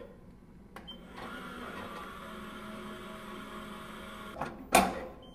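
Powis Parker PhotoPress binder running after its lid is closed: a click, then a steady mechanical whir for about three seconds, followed by a loud clunk near the end.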